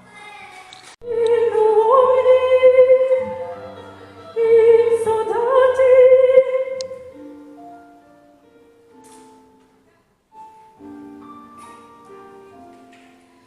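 Operatic singing with strong vibrato, two long sung phrases over keyboard accompaniment, then the keyboard plays alone, quieter, for the last several seconds.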